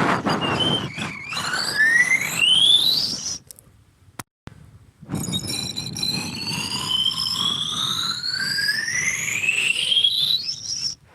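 A sound effect made of a tone rising steadily in pitch over a rushing noise, heard twice: a short rise in the first few seconds and a longer, slower rise from about five seconds in. Each one cuts off suddenly.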